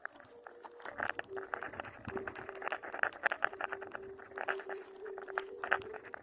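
Birds shifting about in a nest: quick irregular scratching and tapping clicks of feet and bills on nest material, with a faint steady tone underneath.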